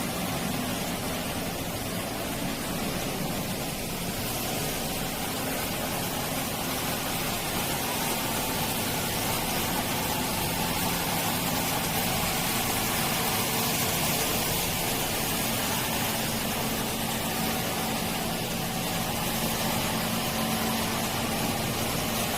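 Kärcher ride-on floor scrubber running steadily, a constant hiss over a low hum.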